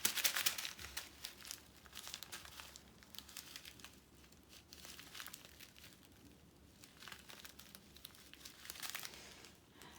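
Small plastic bags of diamond-painting drills crinkling as they are handled and sorted, loudest about the first second, then softer irregular rustling.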